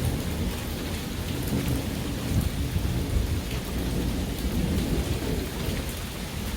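Heavy rain falling steadily in a thunderstorm, with a low rolling rumble of thunder underneath.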